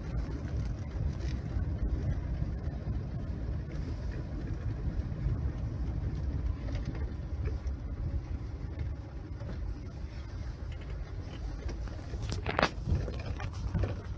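Steady low rumble of a vehicle engine, with a brief sharp clatter near the end.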